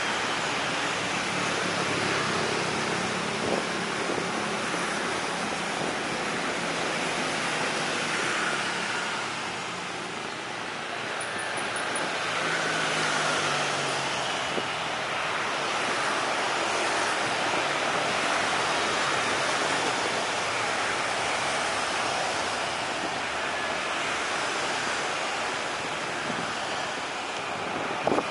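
Lockheed C-130 Hercules's four turboprop engines running through its landing roll: a steady rushing drone with a low hum that falls in pitch about halfway through.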